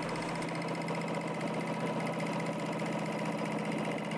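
Usha Janome 450E computerised embroidery machine stitching a design, its needle running in a rapid, even rhythm over a steady motor hum.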